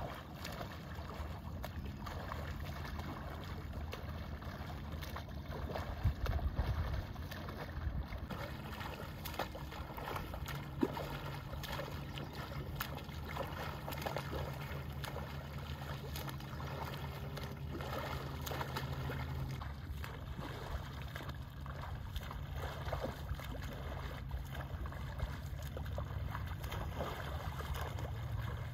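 Water splashing and lapping as a swimmer swims front crawl through calm lake water, with small irregular splashes from the arm strokes over a steady low rumble.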